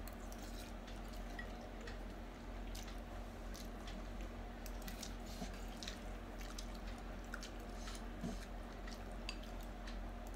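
Noodles being eaten from glass bowls with forks: scattered faint clicks of forks against the glass and soft wet chewing and slurping, over a steady low hum.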